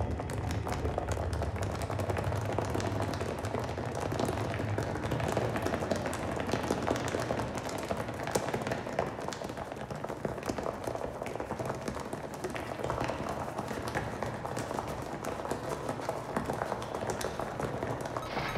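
Footsteps of a large crowd on a hard floor, many steps running together into a dense, continuous patter with occasional sharper taps.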